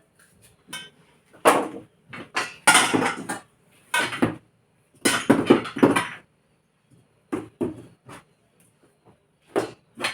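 Kitchen clatter: pots, utensils and seasoning containers being handled, knocking and rattling in irregular bursts with short pauses between.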